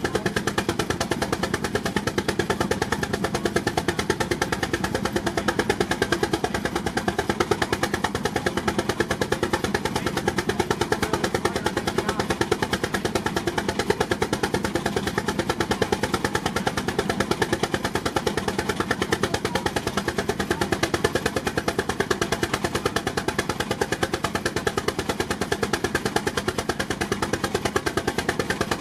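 Steam traction engine running hard under a Prony brake load, its exhaust beating in a rapid, even rhythm.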